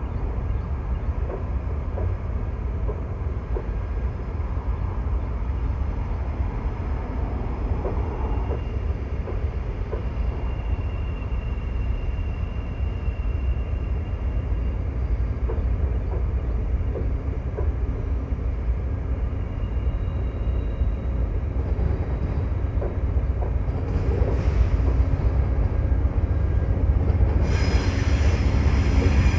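A train's cars rolling past on the rails: a steady low rumble with scattered wheel clicks and a faint high wheel squeal now and then, growing louder and brighter near the end.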